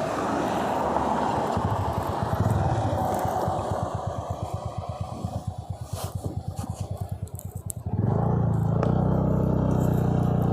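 Motorcycle engine. First there is rushing wind and road noise. Then the engine settles to a low idle with evenly spaced firing pulses that grow sparser. About eight seconds in, a louder, steady engine note begins abruptly.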